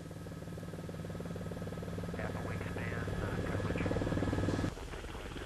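Helicopter running, a rapid even rotor chop over a steady engine hum, growing louder and then dropping away suddenly near the end.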